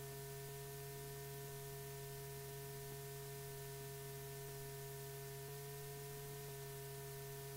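Steady electrical hum with a faint hiss underneath, unchanging throughout: the background noise of an old film soundtrack with no narration.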